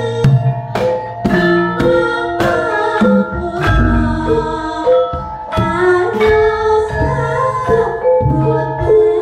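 Javanese gamelan ensemble playing: bronze metallophones and bonang gong-chimes struck in a steady pulse of ringing notes, about two a second, with a kendang drum. A deep low stroke comes about four seconds in.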